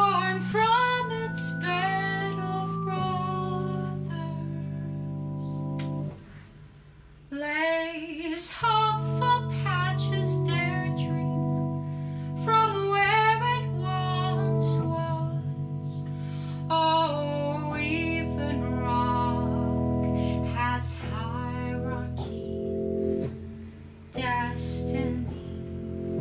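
A woman singing slowly over sustained chords on a Hammond B3 organ. The music drops away briefly about six seconds in, then resumes.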